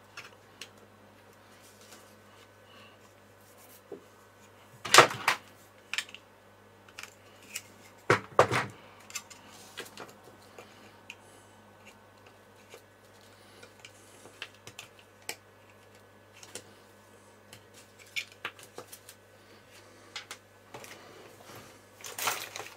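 A utility-knife blade scraping and clicking against a small plastic project box as the plastic is trimmed by hand. There are sharp louder knocks about five and eight seconds in, and a short clatter near the end.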